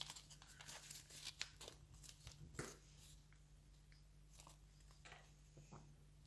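Faint crackling and rustling of a sheet of paper being folded and pressed open by hand: a quick run of small crinkles in the first three seconds, then only a few, over a faint steady hum.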